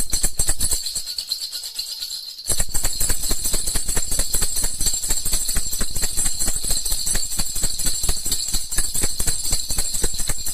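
Baby rattle (jhunjhuna) shaken fast, a dense jingling rattle. The shaking eases about a second in and starts again hard about two and a half seconds in.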